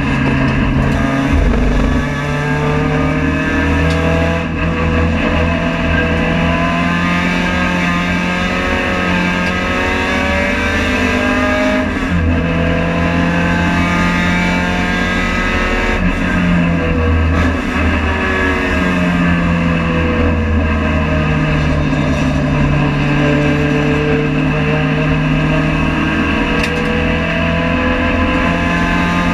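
Race-prepared Honda Civic FD2's four-cylinder engine heard from inside the cabin, revving hard under acceleration. Its pitch climbs through the gears and drops sharply at each upshift, then dips and rises again as the car slows for corners and powers out.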